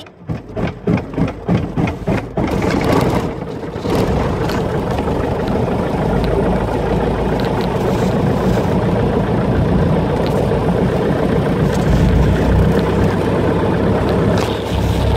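Grumman light aircraft's piston engine being started: it fires in uneven pulses, about four a second, for the first two to three seconds, then catches and settles into a steady run with the propeller turning.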